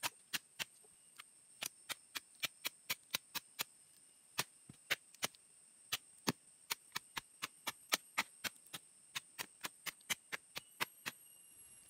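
Machete blade chopping at a dug-up cu li (golden chicken fern) rhizome to trim off its roots and stems. The sharp strikes come about three or four a second in quick runs with short pauses, and stop shortly before the end.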